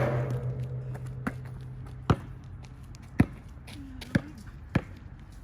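A sharp knock that leaves a low ringing hum for about three seconds, followed by four more sharp knocks a second or so apart.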